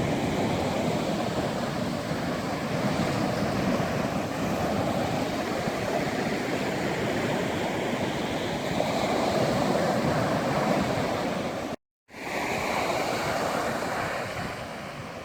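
Sea waves breaking and washing up a beach: a steady surf noise that swells and eases. The sound cuts out completely for a split second about twelve seconds in, then carries on and fades a little near the end.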